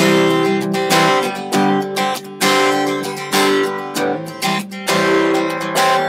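Acoustic guitar strummed in a steady rhythm, its chords ringing, with a chord change about four seconds in: the instrumental introduction of a song before the singing begins.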